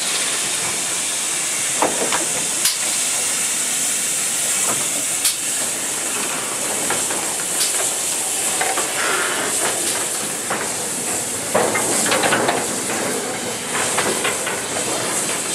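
Steady hiss of steam from a small GWR steam tank locomotive as its slow goods train of a steam crane and open wagons rolls past, with scattered clanks and knocks from the wagons, more of them in the last few seconds.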